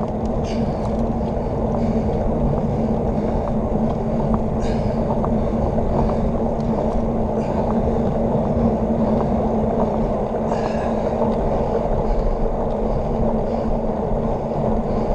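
Wind rushing over a bike-mounted action camera's microphone, with road-bike tyres rolling on asphalt at speed: a steady, heavy rushing noise with a low hum under it. There are a few faint ticks.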